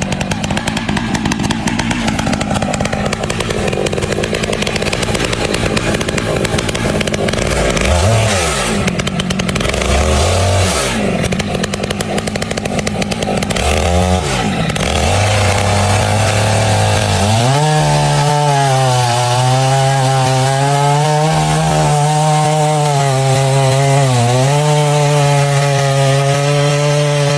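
Chainsaw running loud, its engine pitch rising and falling in the first part. For roughly the last ten seconds it holds a steady high pitch, dipping briefly twice.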